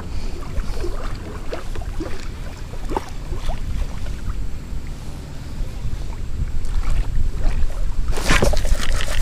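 Wind buffeting the microphone over the flow of river water around a kayak, with a burst of splashing near the end.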